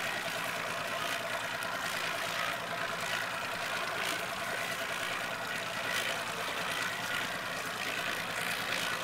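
Boat's outboard motor idling steadily.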